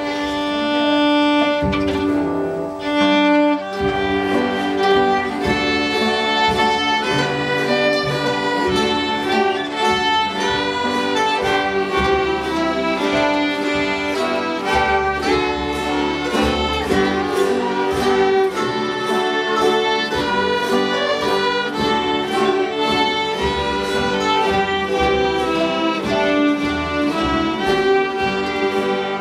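Several fiddles playing a Celtic fiddle tune together, backed by acoustic guitar and piano. Held notes open it, then about four seconds in the tune sets off at a quick, steady pace.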